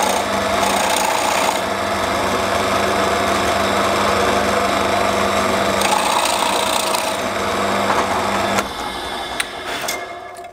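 Drill press running with a steady motor hum while a Forstner bit bores into wood, with two louder stretches of cutting: two test holes. The sound drops about nine seconds in and dies away near the end.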